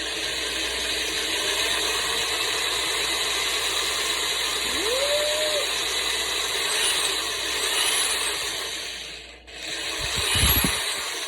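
Black & Decker electric screwdriver running steadily as it tries to drive a screw for a hinge, which does not take. It stops briefly near the end and starts again, with a few low knocks.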